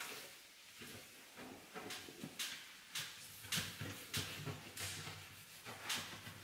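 Sponge scrubbing the inside of a kitchen cupboard: a series of short rubbing strokes, about two a second, getting more frequent from about two seconds in.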